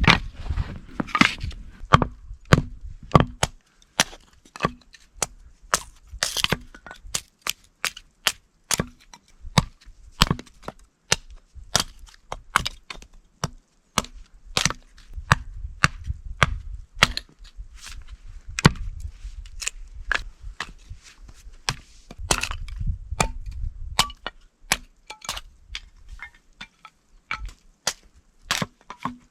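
A long run of sharp cracks and snaps at irregular spacing, one to three a second, with stretches of low rumble in between.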